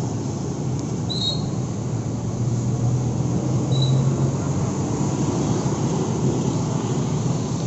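Street traffic, with cars and motorbikes running past and a steady low rumble throughout. Two brief high chirps come about one second and about four seconds in.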